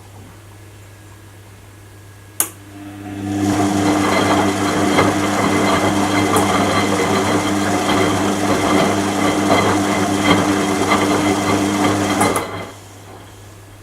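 Washing machine: a sharp click, then about a second later the machine starts up and runs steadily with a mechanical hum for about nine seconds before stopping abruptly. A faint low hum stays underneath throughout.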